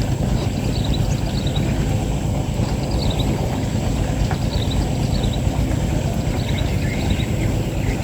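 Steady low rumble of wind on the microphone, with a small bird's short falling chirps repeating about every second.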